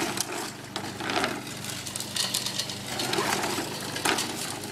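Lawn mower's small gasoline engine running steadily at a low idle, with irregular knocks and clatter over it.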